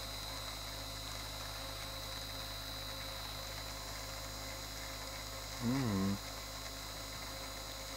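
Steady electrical hum with a thin high whine from the running homemade balancing rig's motor and electronics. About six seconds in comes a brief hummed 'mm' from a person, its pitch rising then falling.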